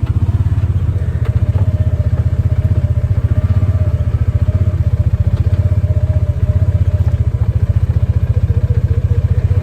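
A vehicle's engine running steadily with a loud, low, rapid pulsing and no change in speed.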